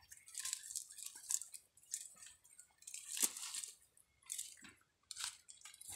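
Hands handling a wet fishing net on mud and dry leaves: irregular short crackling and squelching noises with quiet gaps, loudest about three seconds in.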